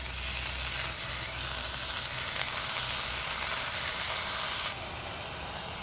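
Bacon sizzling as raw strips are laid one by one onto a hot cast iron griddle over a wood-burning stove. The steady sizzle drops a little in level nearly five seconds in.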